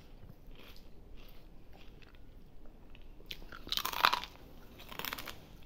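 A baby crunching and chewing a crispy puffed snack, with small crackles throughout, a louder crunch about four seconds in and another near the end.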